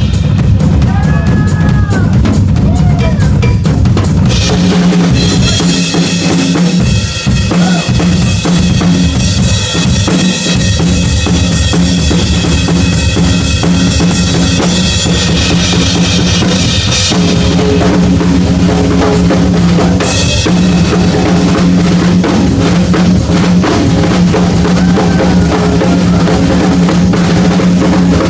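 Heavy-metal drum solo on a full drum kit played live: a fast, continuous barrage of bass drum and snare with rimshots. A wash of cymbals comes in about four seconds in and drops away around fifteen seconds, with a brief return near twenty seconds.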